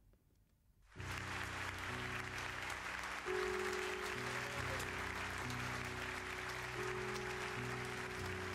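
An audience applauds, starting about a second in, under slow music of long held chords.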